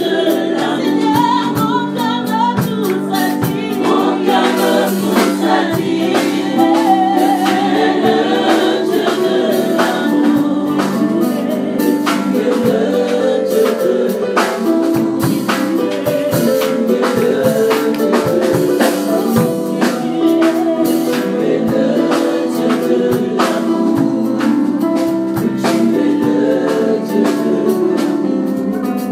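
Gospel worship song sung by a small group of singers through microphones, with a band accompanying and a steady beat throughout.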